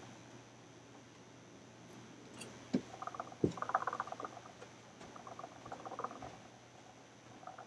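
Handling and moving-about noise: two dull thumps about three seconds in, with spells of light rustling and clicking around them.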